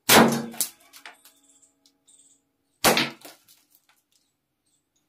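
Metal toy cork gun firing explosive cork caps: two loud bangs a little under three seconds apart, each dying away over about half a second. The first is followed by a quick second crack.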